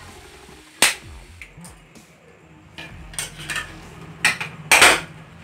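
Metal spatula knocking and scraping against a steel kadai as cooked upma is scooped out: a sharp clank about a second in, a few lighter clicks later, and a louder scrape near the end.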